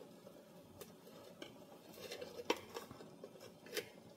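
Several light clinks and taps of a metal spoon against cookware, one sharper clink a little past halfway.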